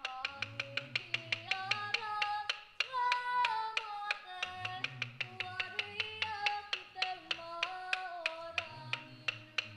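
Māori waiata sung by a kapa haka group to acoustic guitars strummed in a steady, quick rhythm of sharp strokes, about six a second. The voices carry a melody of held and gliding notes.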